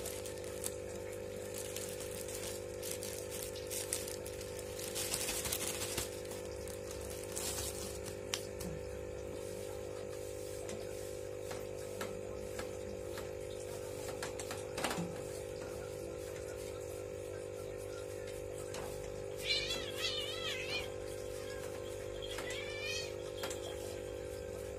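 Wood-shaving hamster bedding rustling and crinkling as it is shaken from a plastic bag and spread by hand across a wire cage floor, with scattered small clicks. A steady hum runs underneath, and two brief high wavering sounds come near the end.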